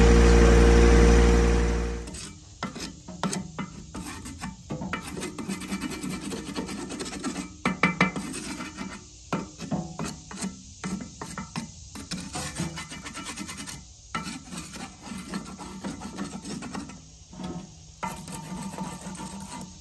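A compact tractor's engine runs steadily, then cuts off abruptly about two seconds in. After that, a wooden stick scrapes and rubs in irregular strokes along the rough, crusted surface of an old clay pipe section.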